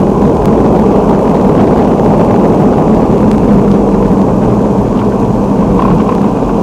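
Loud, steady low rumble of a vehicle on the move, heard from inside: engine and road noise with a faint steady hum.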